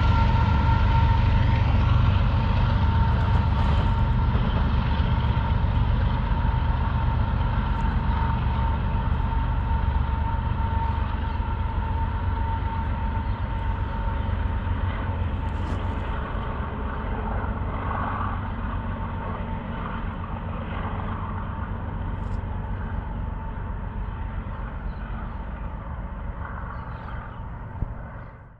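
A BNSF freight train's rear distributed-power locomotives running away into the distance: a steady low rumble with a thin steady whine above it, slowly fading, then cut off at the very end.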